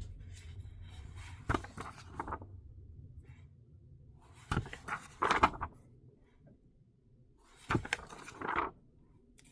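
Paper being handled, most likely comic books shuffled and set down: three short bursts of rustling with light clicks and knocks, a few seconds apart.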